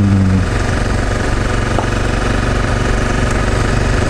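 Honda CRF250M's single-cylinder engine running steadily at low revs.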